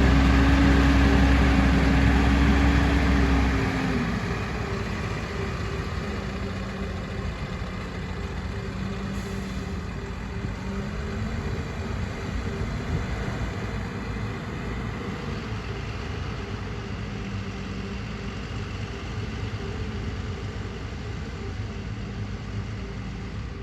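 Diesel engine of a JCB excavator running under load, then easing down to a lower, steadier run about three and a half seconds in.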